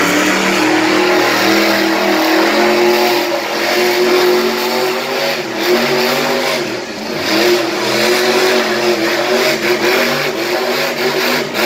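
War Wizard monster truck engine revving hard, its pitch rising and falling repeatedly as the throttle is worked, with a brief dip about seven seconds in.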